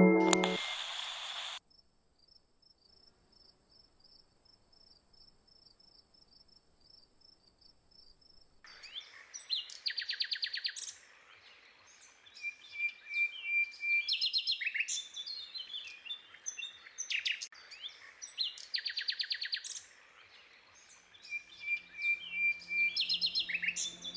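A short chime jingle fades out, followed by several seconds of near silence with faint high-pitched ticking. Then birds start chirping and singing, with repeated rapid high trills and short whistled notes. Soft music comes in near the end.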